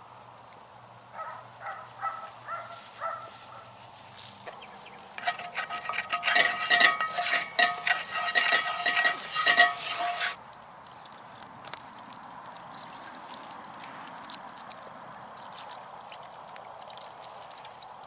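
Water sizzling in a hot cast-iron skillet on a campfire grate while a wooden spatula scrapes and stirs it: loud, busy scraping and clatter for about five seconds, stopping suddenly. Before it, a short run of about five high pitched squeaks; after it, a quieter steady hiss with faint crackles.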